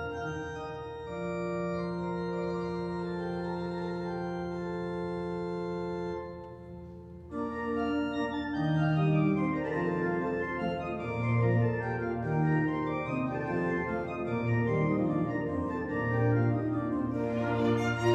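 Organ music: long held chords, a short lull about six to seven seconds in, then a busier passage of moving notes.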